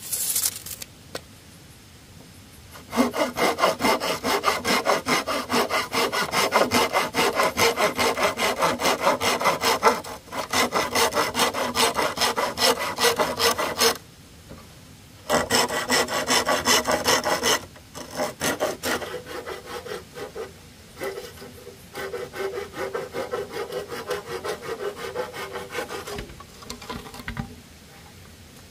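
Small hand saw cutting through a green bamboo pole in rapid back-and-forth strokes. It stops briefly twice, and the strokes are quieter in the second half.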